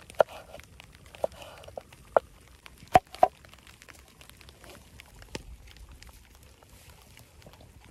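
Sharp wooden knocks and clicks from a kitchen knife, a wooden cutting board and a wooden plate being handled, with the loudest two close together about three seconds in and soft rustling between.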